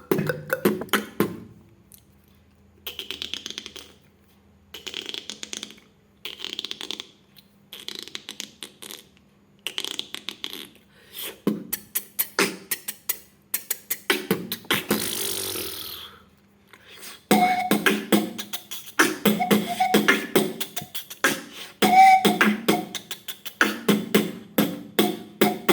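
Beatboxing: mouth-made sound effects and percussion. Short bursts of rapid clicks come first, then a sustained hissing rush about fourteen seconds in, and from about seventeen seconds a dense, rhythmic beat.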